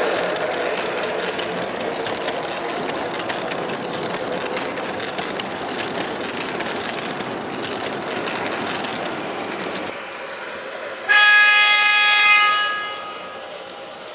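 MTH R40 model subway train running on its track, wheels and motor rumbling with many small clicks. The running noise drops about ten seconds in, then a single horn blast from the train's onboard sound system sounds for about a second and a half and fades out; the horn is the loudest thing.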